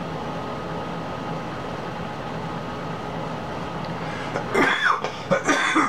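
Steady room noise with a faint hum, then a man coughing and clearing his throat in several loud, harsh bursts during the last second and a half.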